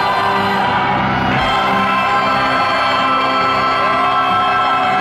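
Thrash metal band playing live at full volume, a dense wall of sustained notes. Near the end a long shouted whoop rises, holds, then falls.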